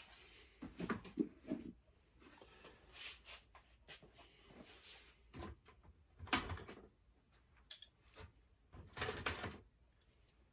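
Irregular clinks, knocks and light clatter of small metal tools and parts being handled and sorted through, coming in short clusters with the sharpest knocks about a second in and past the middle.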